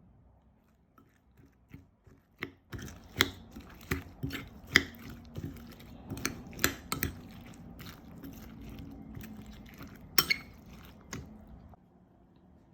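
Sharp clicks and scrapes of a cooking utensil working in a frying pan while eggs fry. The taps come in an irregular run from about three seconds in to about eleven seconds, over a faint steady hum.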